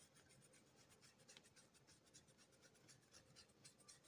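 Very faint scratching of a small flat paintbrush's bristles brushing paint onto a crocheted yarn beak, a quick irregular run of light strokes.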